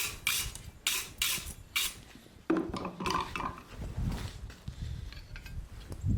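Hammer striking a steel touch-mark stamp on a hot knife blade: five sharp metallic blows about a third to half a second apart. Then, about two and a half seconds in, a steadier low rumbling noise takes over.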